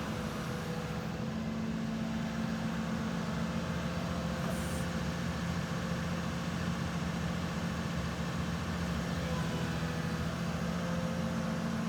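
Excavator's diesel engine running at a steady speed, an even low drone.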